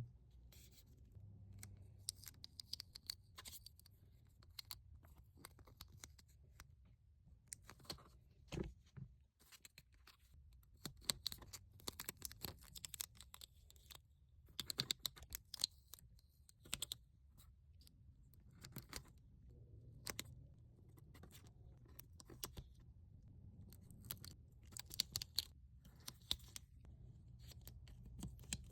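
Faint, irregular scratching and clicking of small objects being handled, in quick clusters with gaps between them.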